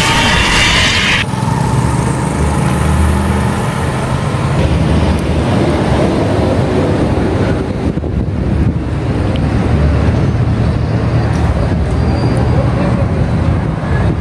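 Street traffic noise: a steady low rumble of vehicles on a city street. A higher-pitched sound cuts off abruptly about a second in.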